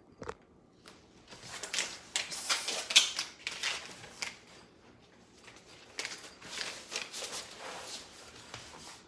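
Packaging and a fabric carrying case being handled: irregular rustling and light knocking, loudest about three seconds in, then a second, quieter spell of rustling.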